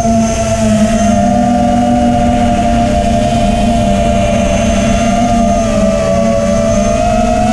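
Eachine Wizard X220 FPV quadcopter's brushless motors whining steadily in flight, the pitch drifting slightly up and down with throttle.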